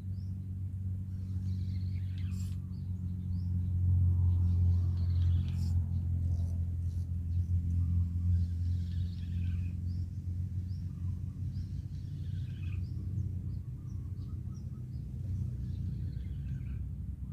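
A steady low rumble, swelling about four seconds in and easing off after, with birds chirping throughout.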